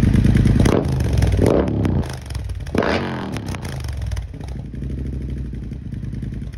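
Triumph Bobber's parallel-twin engine running, revved up three times in quick blips over the first three seconds, then settling to a steady idle.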